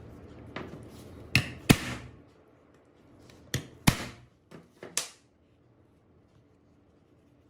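A series of sharp metallic knocks and clinks, about seven in all, from metal parts being handled and set down on a workbench; they stop about five seconds in.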